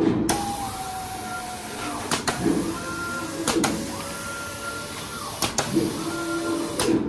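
CNC gantry hot-melt glue spraying machine's drive motors whining as the spray head travels. The pitch rises, holds and falls again with each move, and there is a sharp click every second or two.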